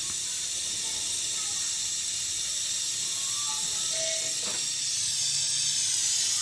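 Gas brazing torch flame hissing steadily as it heats the copper pipe joints to unsolder them from an air conditioner's 4-way reversing valve. The hiss grows louder about five seconds in.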